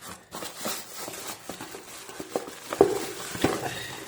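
Rustling of packaging with light clicks and knocks as the grinder's accessories are handled during unboxing, the sharpest knocks a little before and after the three-second mark.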